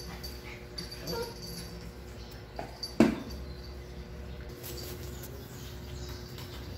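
A stainless steel dog bowl is set down on a tile floor with one sharp clank about three seconds in, followed by puppies eating dry kibble from steel bowls, with small clicks and animal sounds.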